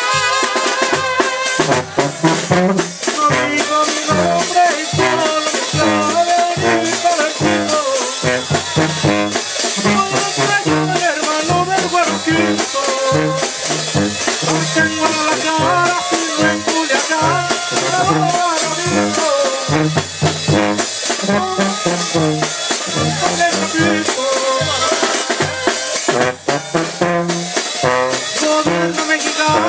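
Live Mexican tamborazo band playing: trumpets and trombones carry the melody over a steady beat from a bass drum (tambora).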